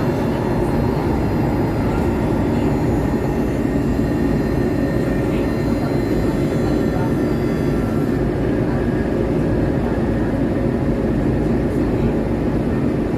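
CKD Tatra RT8D5M light-rail vehicle running along the track: a steady rumble of the bogies and wheels on the rails, with faint high steady tones above it.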